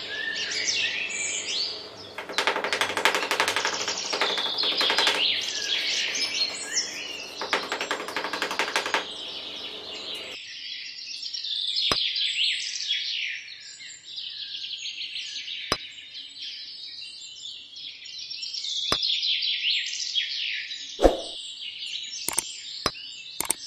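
Small birds chirping and twittering in a busy, continuous chorus. For about the first ten seconds a scratchy rustling runs underneath. After that a few single sharp taps are heard, like small hard pieces being set down.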